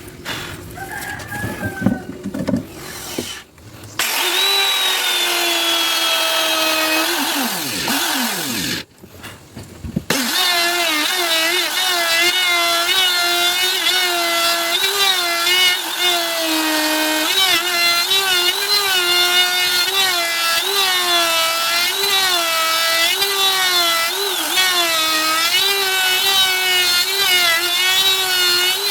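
Handheld electric power tool working wood: a few knocks, then its motor whines, winds down and stops about eight seconds in, starts again about ten seconds in and keeps running, its pitch dipping and wavering as it cuts.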